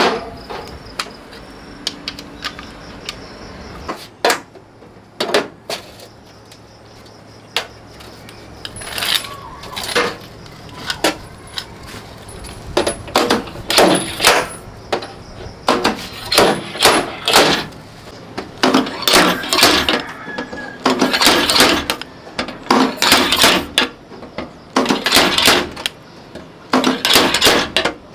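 A series of sharp knocks and clinks, scattered at first, then coming in quick clusters of several a second through the second half.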